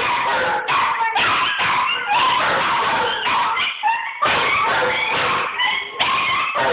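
A deerhound and other dogs howling and whining together, several high voices overlapping in a continuous chorus broken by short yips.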